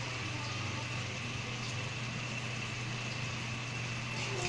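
Chicken adobo sauce simmering in a frying pan: a steady hiss of bubbling over a constant low hum.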